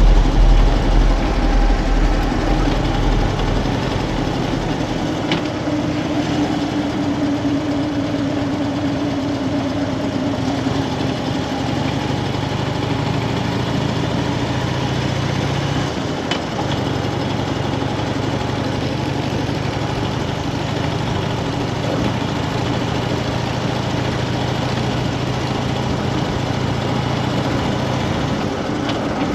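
Harley-Davidson FXDF Fat Bob's V-twin engine running steadily, with a heavy low rumble in the first few seconds.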